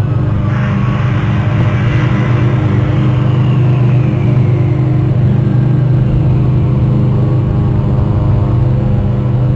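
Steady low mechanical rumble with a constant hum. A hiss swells about half a second in and fades away over the next several seconds.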